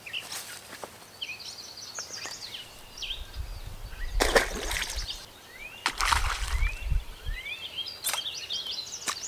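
Songbirds singing in the background, while water splashes and sloshes about four seconds in and again about six seconds in as a hand-held largemouth bass is let go into a creek. A sharp tick follows about eight seconds in.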